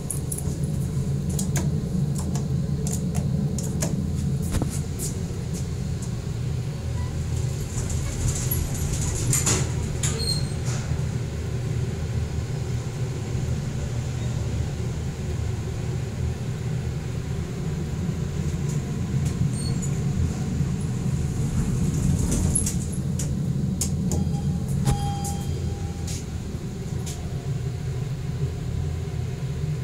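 High-speed traction elevator riding: a steady low rumble inside the cab, with scattered clicks and knocks. A brief beep sounds about 25 s in, shortly before the doors stand open.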